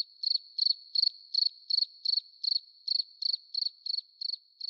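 Cricket chirping steadily, nearly three high chirps a second, evenly spaced.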